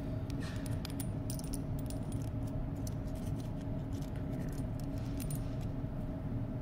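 Light metallic clicks and clinks of a steel scribe picking at the retainers and spring ring on the rotor of a Roosa Master DBG diesel injection pump, in little clusters about a second in and again near five seconds. A steady low hum runs underneath.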